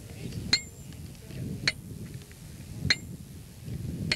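Sledgehammer driving a metal stake into hard ground: four ringing metallic clinks, evenly spaced a little over a second apart.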